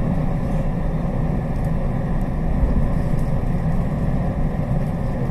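JR West Special Rapid electric train running, heard from inside the car: a steady low rumble.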